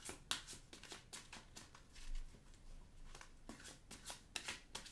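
A deck of oracle cards being shuffled by hand: a run of soft, irregular card flicks and rustles, busiest near the start and again in the last second or so.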